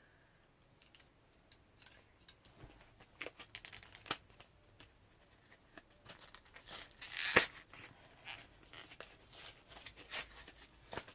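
A sharp knife cutting and prying at stiff plastic packaging, with crinkling, tearing and scattered clicks. A louder stretch of tearing ends in a sharp crack a little past the middle, and there is more crackling near the end.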